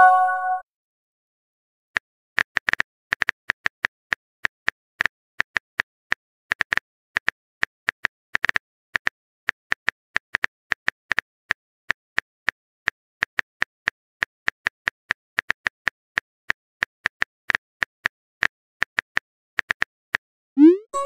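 Texting-app keyboard typing sound effect: a long run of short, crisp clicks, several a second, one per letter as a message is typed. At the very start, a short chime marks the previous message being sent.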